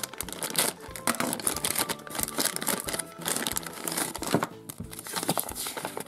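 Crinkling of a small plastic toy packet being handled, with dense irregular crackles.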